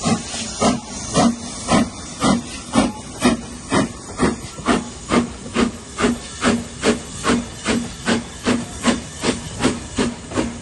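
BR Standard Class 5MT two-cylinder steam locomotive No. 75069 pulling away with its train, its exhaust chuffing in an even beat that quickens from about two to about two and a half beats a second as it gathers speed.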